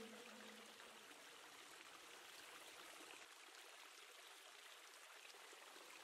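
Near silence: a faint even hiss, with a faint low tone dying away in the first second.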